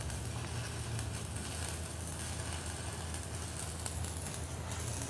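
Electric arc welding a seal weld around the end of a rolled boiler tube in the steel tube sheet: a steady crackling hiss from the arc, over a low hum.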